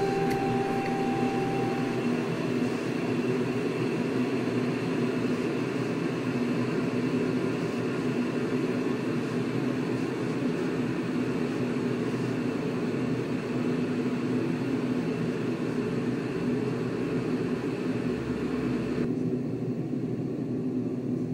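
Steady low mechanical hum of a running machine, such as a fan or motor, with one brief click right at the start.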